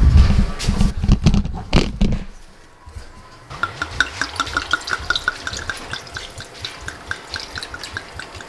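Red wine glugging out of a bottle over ice into a stemmed glass: a quick run of small ticks that starts about three and a half seconds in and keeps going. Before it come a few seconds of heavy handling thumps and knocks.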